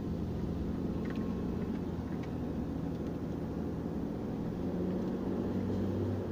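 Automatic car's engine hum and tyre noise heard from inside the cabin, steady and low, as the car pulls away from a green light and drives on.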